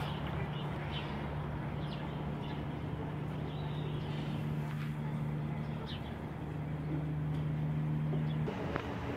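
A steady low mechanical hum that cuts off suddenly near the end, with a few faint high chirps over outdoor background noise.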